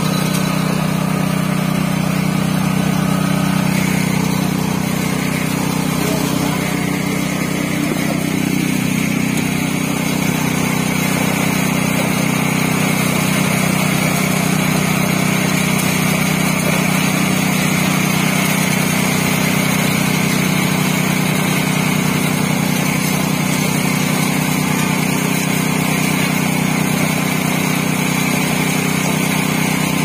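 Engine of the concrete-pouring machinery running steadily at one constant speed, a continuous drone with no change in pitch while concrete is pumped.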